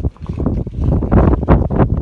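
Wind buffeting the microphone: a loud, irregular, gusting rumble.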